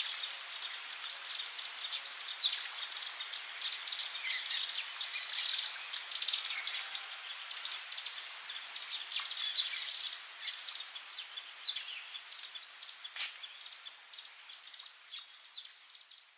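Rainforest ambience: a steady high-pitched insect chorus with many short bird chirps and calls over it. Two loud buzzing bursts come about seven and eight seconds in, then the whole chorus fades out gradually toward the end.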